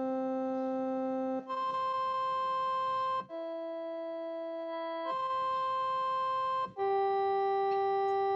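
Background music: slow organ-style keyboard chords, each held steady for about one and a half to two seconds before the next, five in all.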